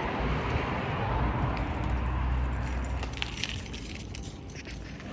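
A bunch of keys jangling, mostly in the second half, over a steady low rumble that fades after about three seconds.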